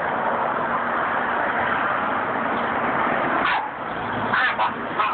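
Steady street traffic noise, with a few brief sharp sounds near the end.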